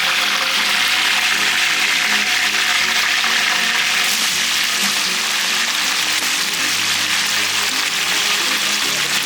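Sliced onions sizzling as they fry in hot oil, a dense, steady hiss, with background music underneath.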